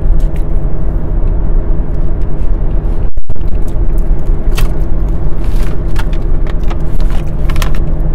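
Steady low drone of a car in motion, engine and road noise, with a brief cut-out about three seconds in and a few light clicks later on.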